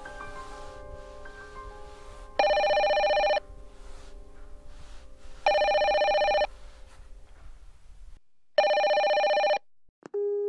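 Panasonic cordless telephone ringing electronically three times, each ring about a second long and about three seconds apart, over soft music that stops just before the third ring. Near the end comes a click, then a short steady tone.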